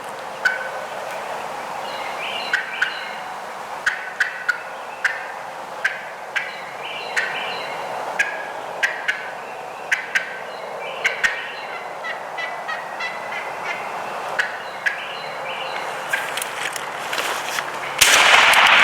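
Wild turkeys calling: a running series of short, sharp yelps and clucks, one to three a second, over steady outdoor hiss. Near the end a loud burst of noise swamps everything.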